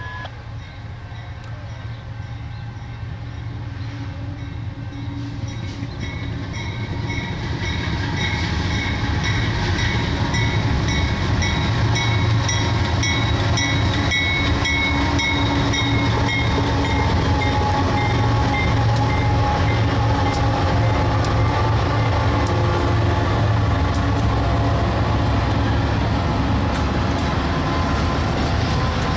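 A BNSF freight train led by a GE C44-9W diesel locomotive approaches, growing steadily louder over about ten seconds. It then passes at a steady, loud level, with a deep engine hum and a repeating high ringing over the train noise.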